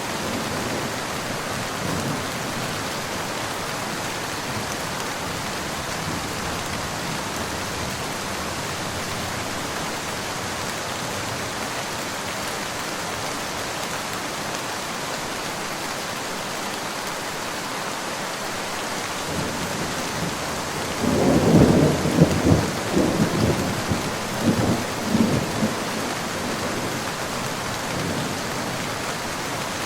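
Steady rain falling, with a roll of thunder rumbling for several seconds about two-thirds of the way through.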